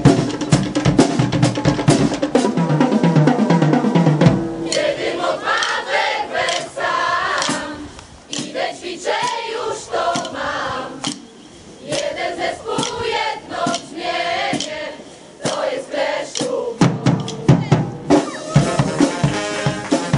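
Marching band snare and bass drums playing a loud cadence. About four seconds in the drums drop out for a quieter melodic passage, and they come back in near the end.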